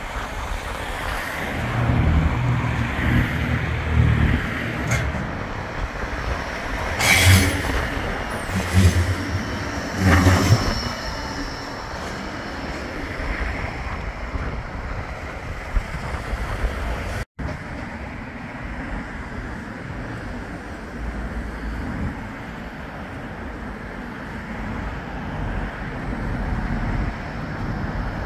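Road traffic passing along a seafront road, cars and vans going by, with several louder passes in the first ten seconds. The sound drops out for an instant about two thirds of the way through, then steadier traffic noise carries on.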